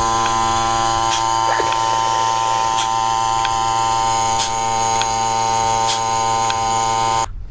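A motor running with a steady buzzing hum and occasional faint ticks, cutting off suddenly near the end.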